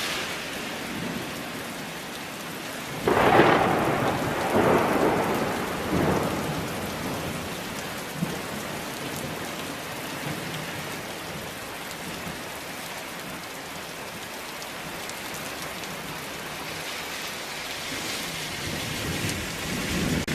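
Steady rain with a thunderclap about three seconds in: a sudden loud crack followed by a rolling rumble that swells a few times and fades over the next three seconds.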